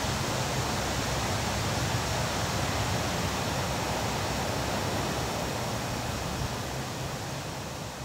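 Wind buffeting the microphone: a steady rushing noise with gusty low rumble, slowly fading away toward the end.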